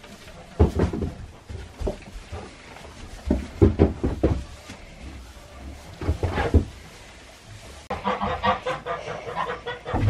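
Irregular knocks and bumps as goats jostle in a wooden stall around a feed pan. From about eight seconds in comes a quick run of short, pitched animal calls.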